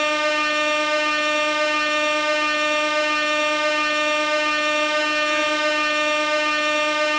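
Compressed-gas air horn sounding one continuous, steady blast at a single pitch, with a faint waver about five seconds in.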